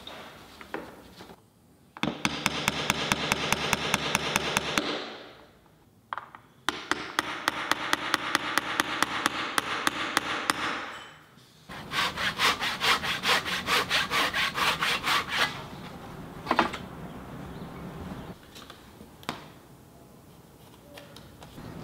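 Hand backsaw cutting through wood molding in a miter box, in three bouts of quick, even strokes, followed by a few single knocks.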